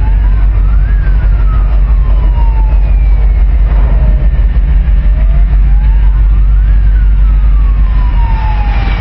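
Two wailing sirens sounding out of step with each other. Each sweeps up in about a second and falls slowly over about three, over a heavy low rumble.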